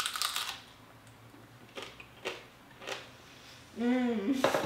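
A crunchy bite into a crispy fried potato taco (taco dorado), followed by a few fainter crunches while chewing. Near the end, a short hummed "mmm".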